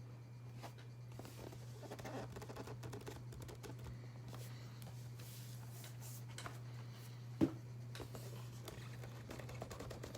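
Small clicks, taps and rustles of things being handled on a table, over a steady low electrical hum; one sharp knock about seven seconds in is the loudest sound.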